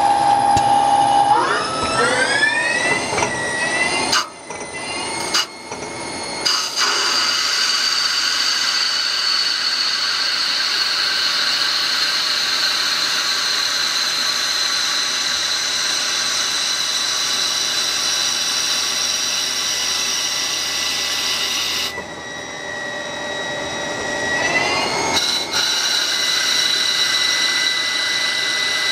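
CNC lathe spindle whining as it spins up about a second and a half in, then running at a steady high whine that slowly falls in pitch while the lathe turns an aluminium tube. The whine dips and spins up again a few seconds before the end.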